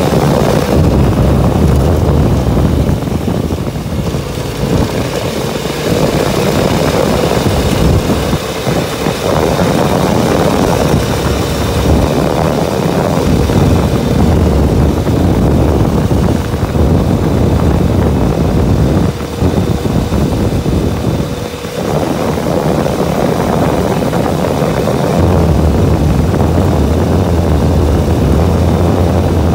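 Off-road vehicle's engine running at steady cruising speed along a gravel road, with a steady whine and wind and tyre noise over it. The level dips briefly about two-thirds of the way through.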